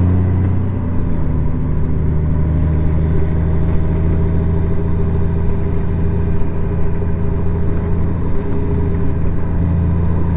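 Honda Gold Wing motorcycle engine running steadily while cruising, a constant hum whose pitch rises slightly a second or two in.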